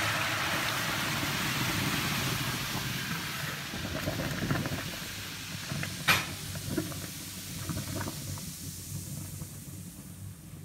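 Boiling water poured from a pot into a kitchen sink drain that has been dosed with baking soda and vinegar: a steady rushing hiss that tapers off over the last few seconds. A sharp knock about six seconds in, with a few fainter knocks around it.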